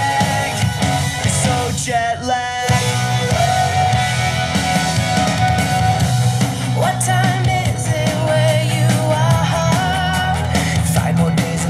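Rock music with a singing voice and a steady bass line.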